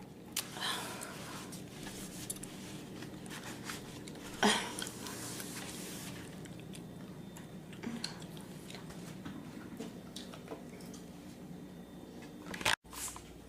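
A single short, sharp sneeze about four and a half seconds in, over quiet room noise with a few fainter small noises. The sound cuts out briefly near the end.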